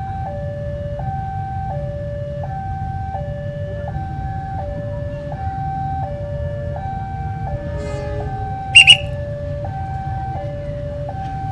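Railroad level-crossing warning alarm sounding its two-tone electronic 'ting-tong', high and low notes alternating evenly about two-thirds of a second each, the signal that a train is coming. About nine seconds in, two short, loud, high-pitched blasts, the loudest thing here, cut through over a steady low rumble.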